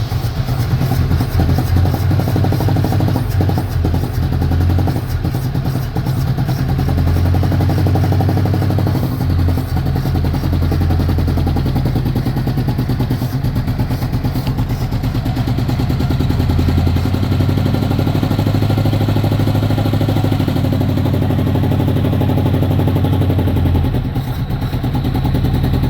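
1983 Chevrolet Chevette's four-cylinder engine running rough with a misfire, its speed stepping up and down a little as the gas pedal is worked to keep it from stalling. The car needs mechanical work.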